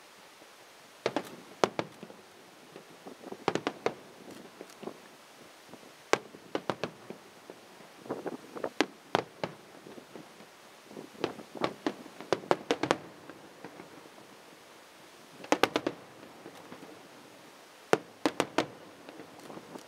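Fireworks going off: sharp bangs of bursting shells in quick irregular clusters, several reports at a time, with short lulls between clusters.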